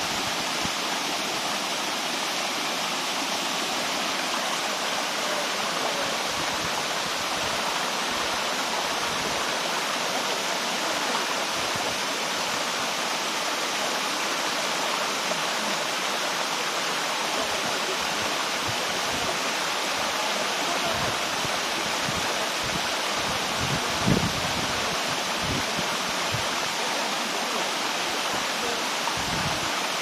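Sri Getuk waterfall and its river: a steady rush of falling and flowing water. A single brief low thump sounds about three quarters of the way through.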